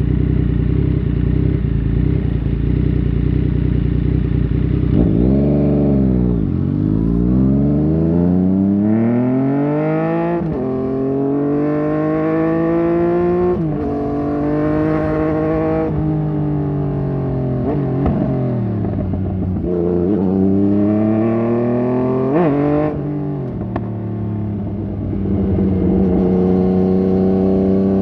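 Yamaha MT-09 Tracer's three-cylinder engine through a Fuse Racing aftermarket exhaust, heard from the rider's seat. It runs low and steady, then about five seconds in it revs up and pulls through the gears, its pitch climbing and dropping sharply at each upshift. It eases off once, winding down, then pulls again and settles into a steady higher cruise near the end.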